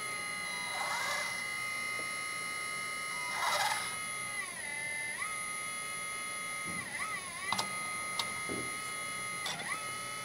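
Hydraulic pump of a 1/14 scale RC hydraulic excavator running as the boom, arm and bucket move, a steady whine of several tones that dips in pitch a few times as the load changes. Two short hisses come in the first four seconds, and a few faint clicks near the end.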